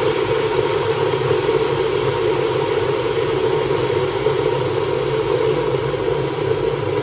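A steady mechanical whir with a faint constant high tone above it, running evenly throughout, like a small motor or appliance running.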